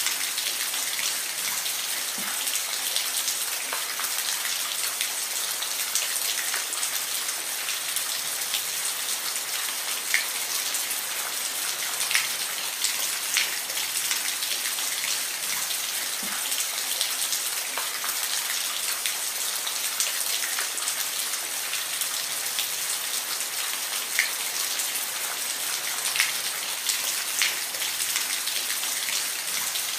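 Steady rain, a dense hiss with scattered louder drops striking a surface here and there.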